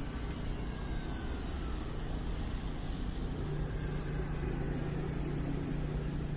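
City road traffic: a steady rumble of passing vehicles, with a steady low hum coming in about halfway through.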